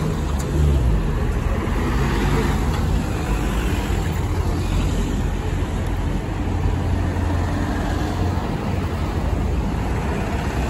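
Double-decker bus engine running as the bus pulls across the junction and passes close by, over steady road traffic from cars; the low engine note is strongest about seven seconds in.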